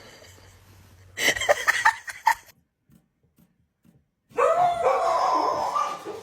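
A dog barking several times in quick succession, then, after a short gap of silence, a long loud wavering cry.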